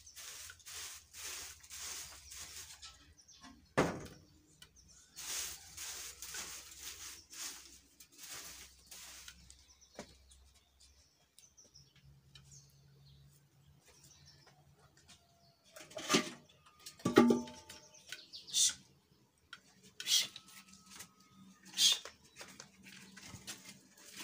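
Dry grass and sticks rustling, crackling and snapping as they are handled and laid into a three-stone wood fire. There is a knock about four seconds in, and several loud, sharp snaps in the second half.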